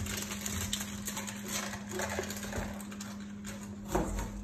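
Hands mixing chopped vegetables with oil and spices in bowls, with soft squishing and rustling, a knock about four seconds in, and a steady low hum underneath.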